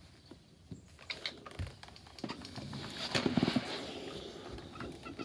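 Handling noise of a cotton fabric pad being worked at an ironing board: light rustles, small clicks and knocks, busiest about three seconds in.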